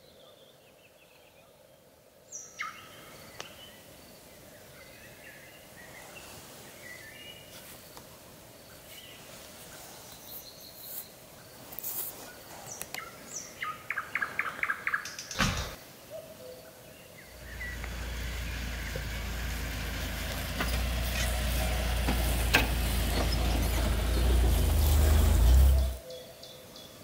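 Songbirds chirping, with a short rapid trill, and a single sharp crack about halfway through. A few seconds later a low rumbling noise starts, grows louder and stops suddenly near the end.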